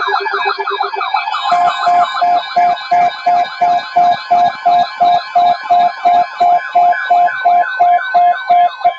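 Electronic alert sirens: several fast rising-and-falling yelp tones overlapping. About a second and a half in, a pulsing alarm tone of about three beeps a second and a steady tone join them.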